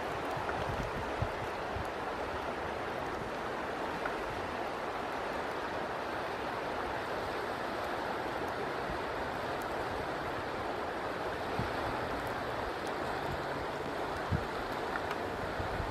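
Steady rushing of flowing river water, with wind buffeting the microphone in low thumps now and then.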